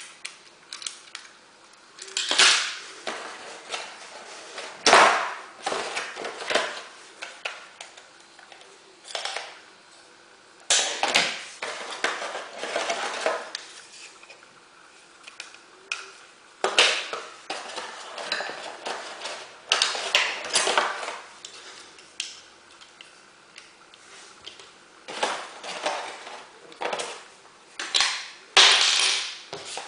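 Small hard objects being handled: irregular clicks, knocks and clattering in clusters, separated by quieter gaps.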